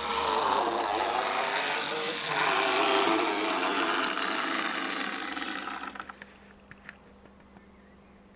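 N gauge model tank locomotive running along the track, its small electric motor whirring with a wavering pitch as it passes close by. About six seconds in the sound fades away, leaving a faint hum and a few light clicks.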